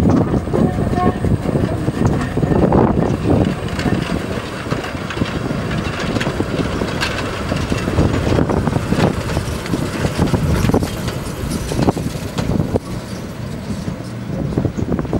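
Narrow-gauge steam locomotive and its coaches running past, with a scatter of sharp clicks from the wheels on the track as the coaches go by.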